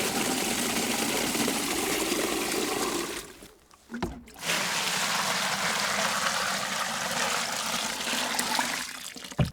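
Water pouring into a bucket of chopped nettles to make compost tea, in two long, steady pours with a short break a little over three seconds in. A brief knock near the end.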